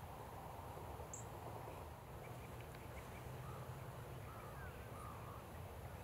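Open-air ambience: a steady low rumble and hiss with faint, distant bird calls, a short high chirp about a second in and a few soft calls in the second half.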